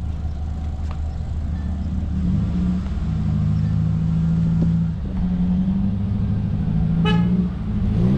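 A vehicle's engine running while driving, its note rising and falling a few times as the load changes. A short, high toot sounds about seven seconds in.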